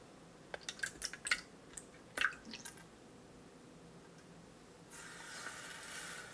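Egg whites poured into a mixing bowl, landing in a quick run of drips and plops. About five seconds in, granulated sugar is poured onto them with a steady hiss.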